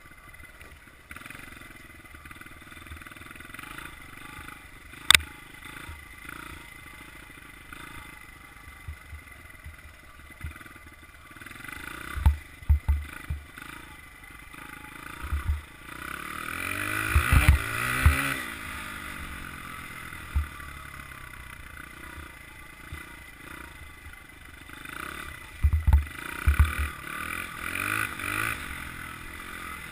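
Honda CRF100F dirt bike's small single-cylinder four-stroke engine running along a snowy trail, revving up and louder in the middle. A sharp knock comes about five seconds in, and several low thumps come as the bike jolts over the trail.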